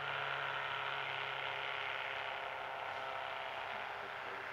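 Distant hovercraft engine and propeller droning steadily at high power, easing slightly quieter toward the end. The craft is bogged in sticky, wet thawing snow and cannot get moving.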